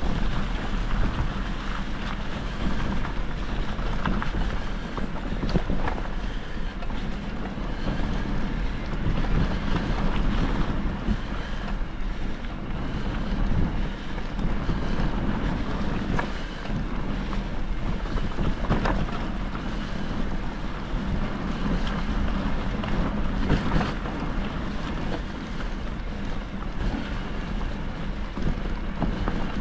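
Wind buffeting a moving action camera's microphone, with a steady low rumble and a few short crackles.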